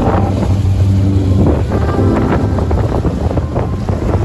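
Jet ski running under way across choppy water, with spray splashing along the hull and wind buffeting the microphone.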